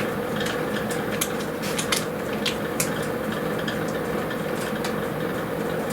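Wood-burning stove with a steady hum, scattered sharp crackles and light clicks sounding over it throughout.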